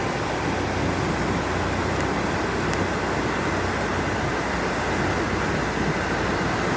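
Fast, high floodwater rushing past after a rainstorm: a loud, steady roar of water.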